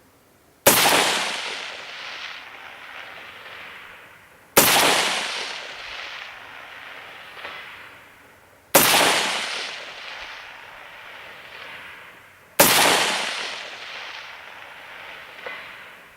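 Four single rifle shots from an AR-15 firing .223 69-grain match loads, about four seconds apart, each followed by a long rolling echo that dies away over a few seconds.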